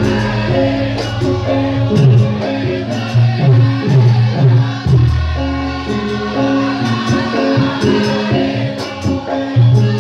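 Javanese gamelan music of the kind played for lengger dance. Low drum strokes drop in pitch about twice a second under held metallic notes, with jingling percussion on top.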